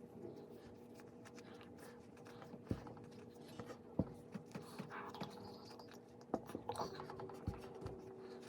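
Slime being stretched and squished by hand: faint, irregular sticky clicks and pops, over a steady low hum.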